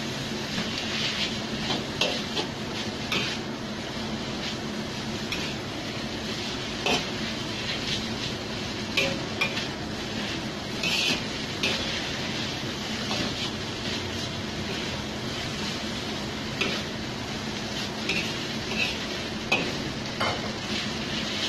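Udon noodles sizzling in a wok over a gas flame while a metal spatula stirs and tosses them, scraping and knocking against the pan at irregular moments.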